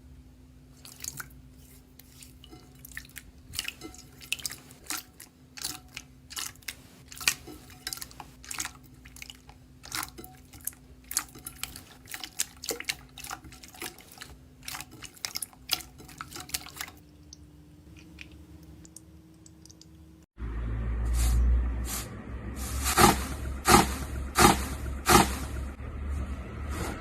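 Slime being pressed and worked by hand, making a long run of sharp, wet pops and clicks. About 20 seconds in it cuts to a louder clip, where the pops are louder over a low rumble.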